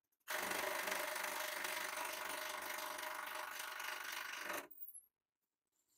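Hydraulic press running steadily as its ram comes down and flattens a PVC pipe: a dense mechanical noise with a steady hum under it. It starts suddenly just after the start and cuts off abruptly about a second before the end.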